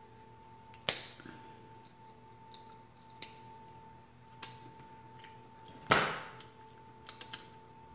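Snow crab leg shells cracking and snapping as they are broken by hand. Sharp cracks come about a second in and again later, the loudest about six seconds in, with a few quick clicks near the end. A faint steady hum runs underneath.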